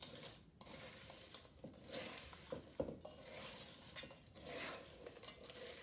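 A spoon stirs peanut-butter-and-white-chocolate-coated corn Chex cereal in a stainless steel mixing bowl. The cereal makes a run of soft swishes, with a few sharp clinks of the spoon against the bowl.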